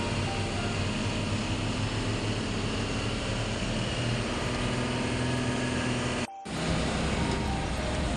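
Truck engine and road noise heard from inside the cab while driving: a steady drone. The sound drops out abruptly for a moment about six seconds in.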